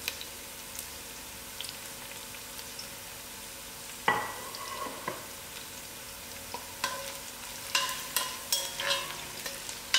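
Chopped onions and whole biryani spices sizzling steadily in hot oil in a pot, with a spoon scraping and knocking against the pot a few times, most of it in the second half.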